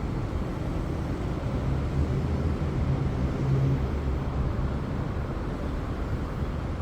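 Steady low background rumble, with a faint low hum for a couple of seconds in the middle.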